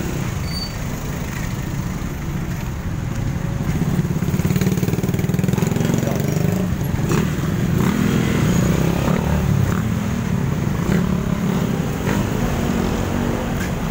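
Traffic in a jam: engines of cars, motorcycles and trucks running close by, with a steady low rumble and engine pitch wavering up and down in the middle.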